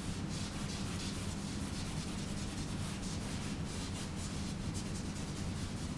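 Repeated scrubbing strokes of a paintbrush on a wall surface, a few a second, over a steady low hum.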